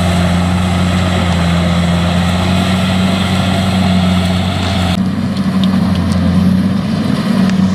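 Kubota DC-70 combine harvester's diesel engine running steadily with a low, even hum; about five seconds in, the higher-pitched mechanical noise drops away abruptly while the engine hum carries on.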